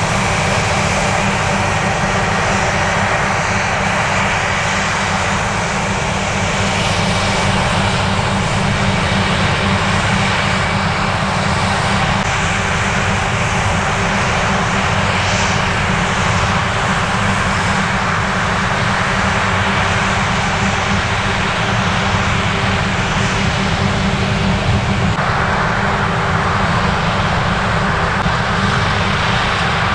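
Heavy diesel harvest machinery running steadily: a constant engine drone with dense mechanical noise over it, growing slightly brighter near the end.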